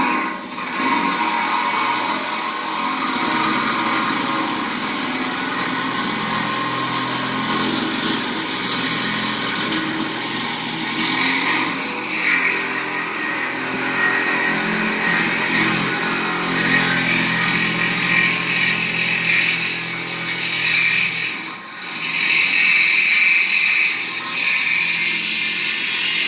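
Power cutting tool running steadily as it cuts through the thin, weathered steel of a mobile home's trailer frame. It dips briefly about 21 seconds in, then picks up again.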